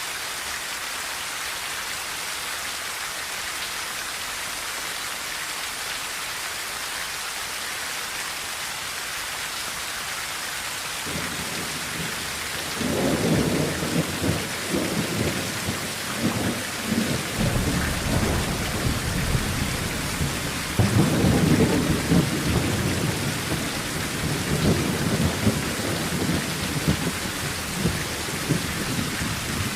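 Steady rain falling on a tin roof, with a long roll of thunder rumbling in about a third of the way through and swelling again after about two-thirds.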